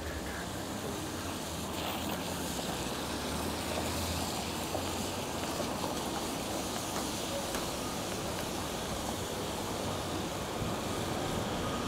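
Steady rush of wind and tyre noise from a bicycle riding on wet city streets, with a low rumble over the first four seconds or so.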